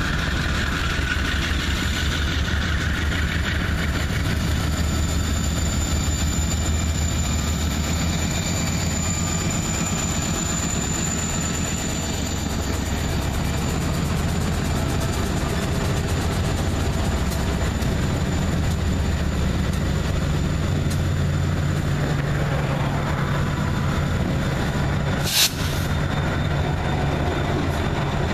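A string of CSX and leased HLCX diesel freight locomotives passing slowly, their engines running with a steady low rumble. A single short sharp click comes near the end.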